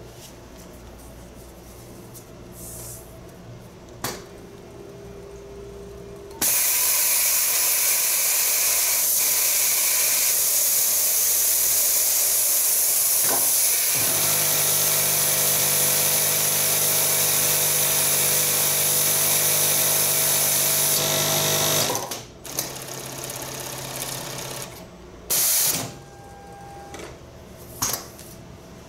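SiRUBA ASC-UWB100 automatic waistband machine with an interlock head sewing a waistband. After a few seconds of low hum it starts abruptly and runs loud and steady for about fifteen seconds, a steady hum joining partway through, then stops abruptly. A few short sharp noises follow near the end.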